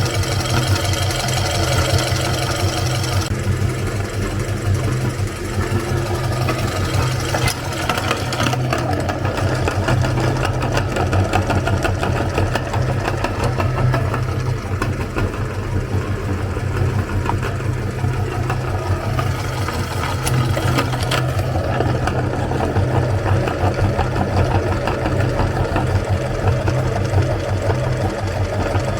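Electric meat grinder running steadily with a low motor hum, grinding through bars of soap.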